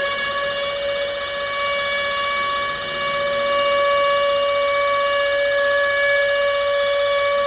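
Civil defense siren sounding one long, steady wailing tone at a held pitch, growing a little louder about three seconds in.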